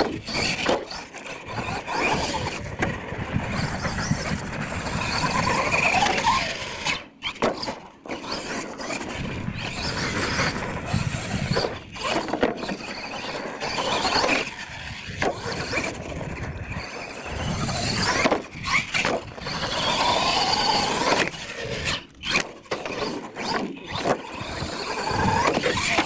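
Radio-controlled monster truck's motor whining, rising and falling in pitch as it is throttled up and down, and cutting out briefly a few times.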